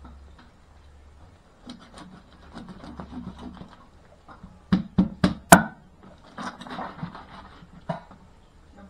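Cleaver working on a whole rohu fish on a wooden chopping board. The blade scrapes over the fish, then comes down in four quick chops, the last the loudest, and one more knock near the end.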